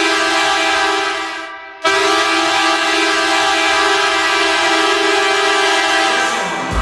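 Ice hockey arena goal horn blowing two blasts. The first fades out about a second and a half in, and after a brief break a second, long steady blast follows.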